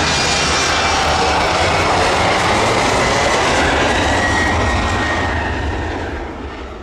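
Embraer E190 airliner's twin turbofans at take-off thrust during the take-off roll and lift-off: a steady jet rush with a high fan whine that slides slightly lower as the aircraft passes, fading away near the end.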